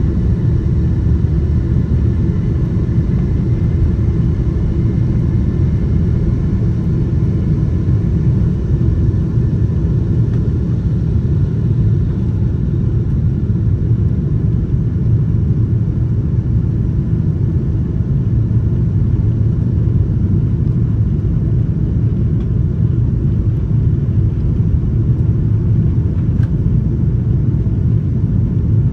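Boeing 777-200's Pratt & Whitney PW4000 turbofan engines at takeoff thrust, heard from inside the cabin: a loud, steady deep rumble with faint high tones, through the takeoff roll and liftoff.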